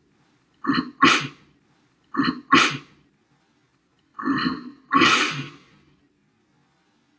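A man choking on grated Parmesan while eating pizza: three harsh, explosive coughing fits, each of two quick bursts, the third drawn out longer than the first two.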